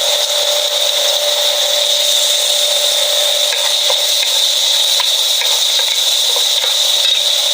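Chopped tomato, onion and cinnamon stick frying in oil in a pan, a steady sizzling hiss with a few faint clicks from stirring. A steady high whine runs over it throughout.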